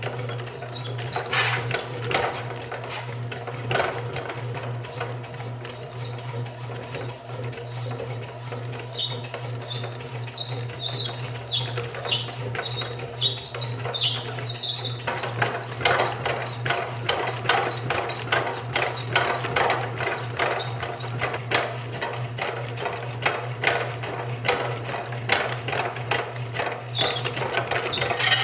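30-pound Kerrihard mechanical power hammer running under a steady electric-motor hum, its ram knocking in a run of blows with some squeaks, the blows coming denser and louder about halfway through. The hammer runs but not as it should: its 3/4 hp motor is too small to drive it.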